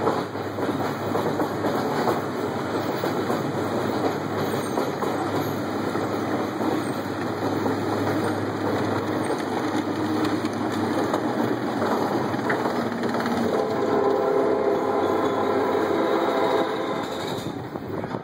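Arrow mine train roller coaster climbing its chain lift, the chain and track clattering steadily, then the train rolling along the steel track with a rumble of wheels. In the last few seconds a humming whine rises out of the rumble.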